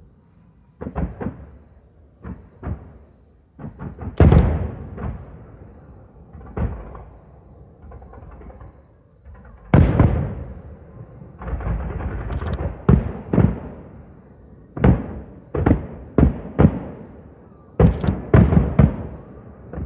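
Aerial fireworks shells bursting overhead in a long series of sharp booms, each followed by a rumbling echo. The bursts are spaced out at first and come in quick succession from about halfway through.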